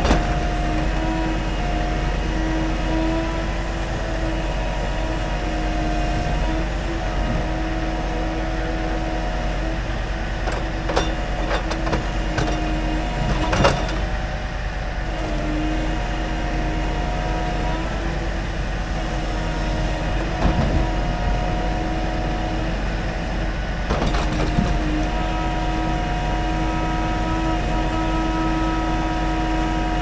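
Scania timber truck's engine running with its hydraulic loader crane working, a steady whining hum that dips and rises in pitch now and then as the crane moves. Pine logs knock a few times as they are lifted.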